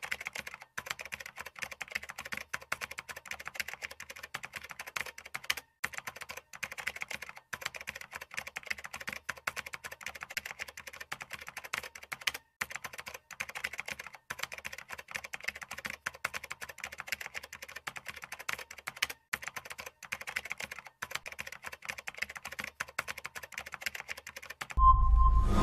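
Rapid computer-keyboard typing clicks, a typing sound effect matched to text appearing letter by letter, going on steadily with a few brief pauses. About a second before the end, a much louder, deep sound with a few short tones cuts in.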